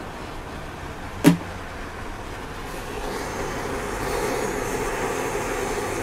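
Hand torch on a green propane cylinder lighting with one sharp pop about a second in, then a steady flame hiss that sets in and grows louder from about three seconds in.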